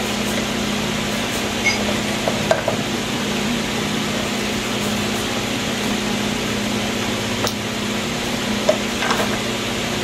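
Steady hum and hiss, with a few light clicks of metal parts being handled as an industrial sewing machine head is taken apart.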